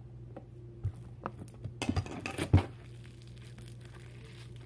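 Sticky slime being kneaded and pulled by hand after more activator is added, giving a run of sticky clicks and crackles, the loudest about two and a half seconds in.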